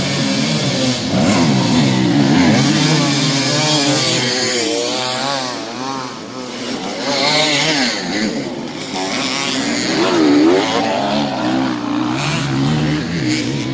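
Several enduro dirt bike engines revving at once, their pitch rising and falling again and again as the throttles are worked.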